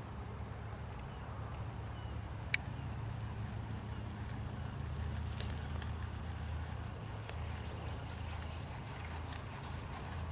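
Steady high-pitched trill of insects in the grass, with one sharp click about two and a half seconds in. From about halfway, the hoofbeats of a paint horse walking and trotting on grass come in and grow more frequent near the end.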